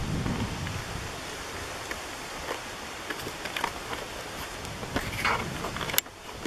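Wind rumbling on the microphone, fading after the first second or so, with scattered light rustles and clicks and one sharp click near the end.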